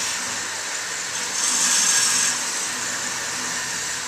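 Wilmont belt grinder running a ceramic belt while a steel knife blank is held against the contact wheel: a steady grinding hiss that gets louder from about one and a half to two and a quarter seconds in, as the water-jet kerf is ground off the blank's edge.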